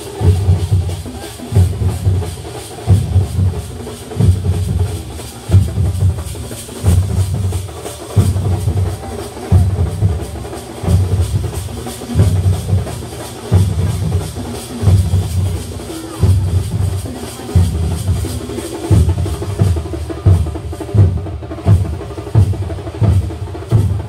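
Thambolam percussion troupe's big drums beating a loud, driving rhythm, with heavy low strokes and a strong accent a little more than once a second: the kalashakottu, the climactic closing beat of the performance.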